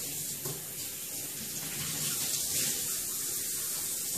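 Kitchen sink faucet running steadily while a microfiber cleaning cloth is rinsed out under it by hand, with a short knock at the very end.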